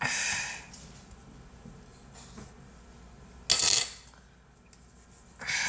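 Short clinks and clatters of kitchenware being handled, three brief noisy bursts with the loudest about three and a half seconds in.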